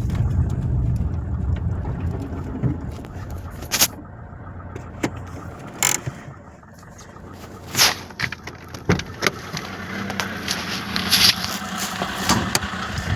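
2016 Toyota Corolla engine running, its sound fading over the first few seconds and building again near the end, with half a dozen sharp, irregular knocks: the knocking noise that persists even after the engine assembly was replaced.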